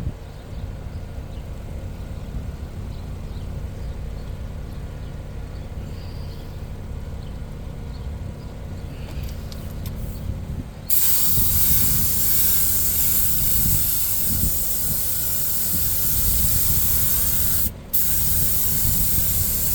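Compressed-air spray gun spraying colorant onto a vinyl car seat: a steady, loud hiss that starts abruptly about eleven seconds in, stops for a moment near the end and starts again. Before it there is only a low steady rumble.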